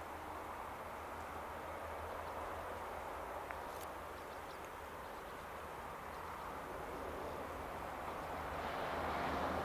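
Class 158 diesel multiple units approaching on the line: a steady distant sound of diesel engines and wheels on rail that grows louder over the last second or so.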